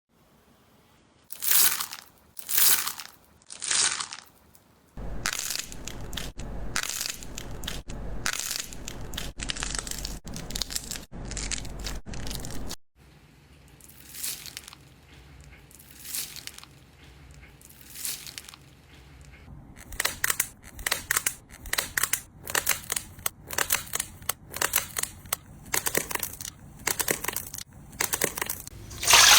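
Slime being pressed and squeezed, giving a series of crackling crunches: a few separate crunches at first, then rapid runs of crackles.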